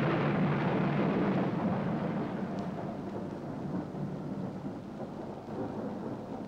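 A long roll of thunder, loudest at first and slowly dying away, with steady rain beneath it.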